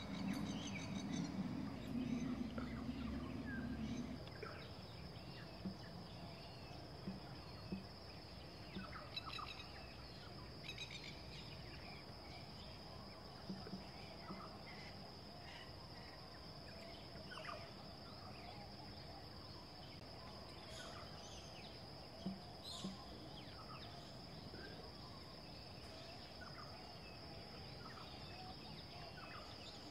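Faint outdoor ambience: scattered short bird chirps and calls over a steady high-pitched whine, with a low rumble that fades out about four seconds in.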